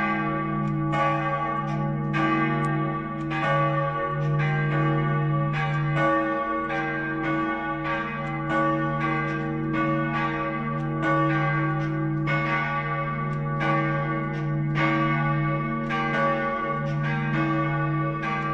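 Two church bells, a large one cast in 1515 and a small one cast in 1650, tuned to C-sharp and G, ringing together. Their strokes fall in an uneven, overlapping pattern about once or twice a second, over a steady hum that carries on between strikes.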